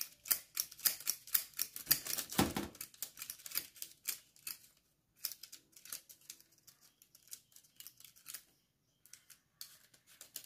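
Metal ice cream scoop scraping cookie dough from a steel mixing bowl, its spring-loaded release lever clicking as each ball is let go: a quick run of clicks and scrapes that thins out after about four seconds.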